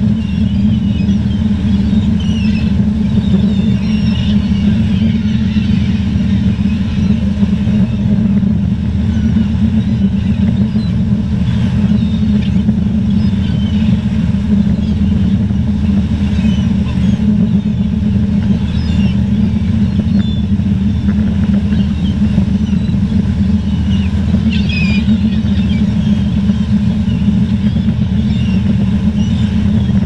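A steady, loud low rumble throughout, with faint high calls of seagulls scattered over it.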